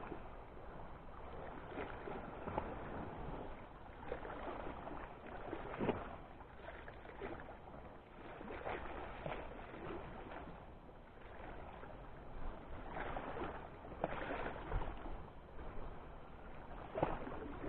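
Seawater lapping and splashing against shoreline rocks in irregular surges, with a few sharper splashes.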